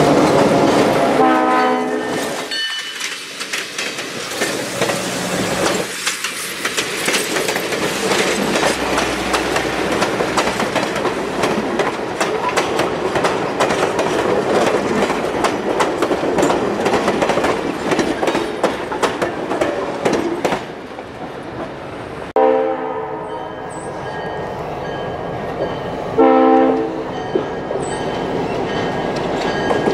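A New Hope Railroad diesel locomotive passes close with a horn blast about a second in. Passenger coaches then roll by with a steady clatter of wheels over the rail joints. In the last third, an approaching diesel locomotive sounds its horn in two separate blasts.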